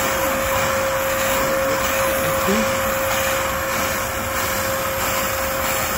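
Steam cleaner jetting steam from its hand nozzle onto fabric seat upholstery: a steady rushing hiss with a constant mid-pitched whine from the machine.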